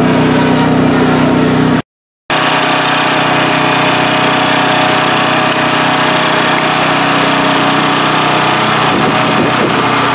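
A small engine running steadily at constant speed, with a short dropout about two seconds in.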